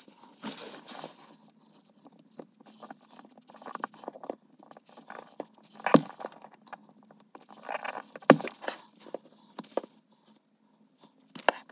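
Hand wire strippers clicking and snipping on a bundle of electrical wires, with the wires rustling in between; the sharpest snaps come about six and eight seconds in.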